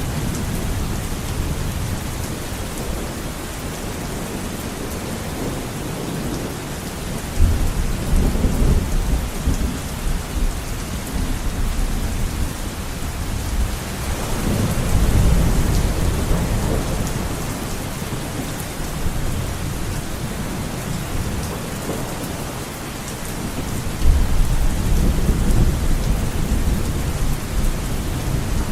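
Heavy rain beating steadily on a window, with low rumbles of thunder rolling in three times: about a quarter of the way in, near the middle, and near the end.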